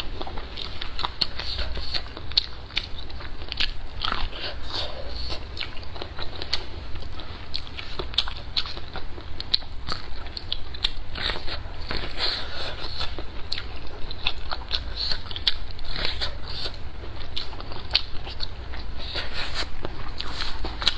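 Close-miked biting and chewing of boiled yellow waxy corn on the cob: kernels crunch and click in quick runs as they are bitten off the cob, with wet chewing between bites.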